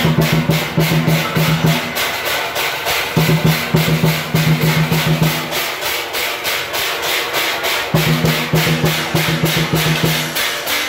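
Procession percussion: drums and clashing cymbals beating a fast, steady rhythm of about five strokes a second. A low held tone sounds along with it in three stretches, stopping and starting again.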